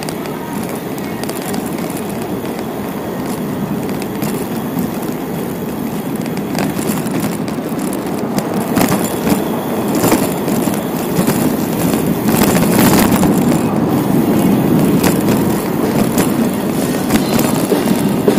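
Bicycle rolling over rough pavement: a steady low rumble of tyre and road noise that slowly grows louder, with rattling knocks from about halfway through.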